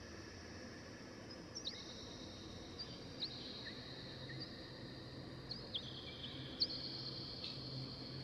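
Faint birds chirping: scattered short high chirps over a low steady hum.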